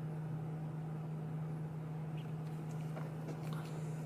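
A steady low hum, with a few faint light clicks and rustles about halfway through as solder-tabbed AAA nickel-metal-hydride cells are handled in gloved hands.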